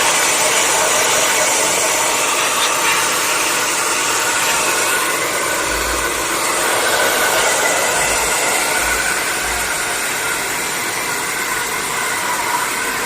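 Steady rushing noise of an electric air blower blowing dust out of an open laptop's internals.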